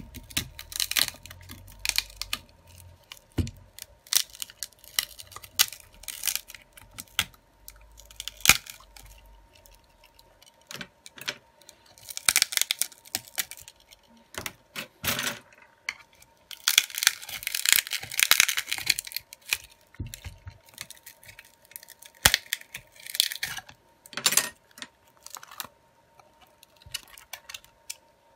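Phone display being pried off its metal midframe: a pry tool clicks and scrapes along the edge in many short ticks, with longer tearing scrapes as it separates, the longest about two-thirds of the way through. A faint steady hum runs underneath.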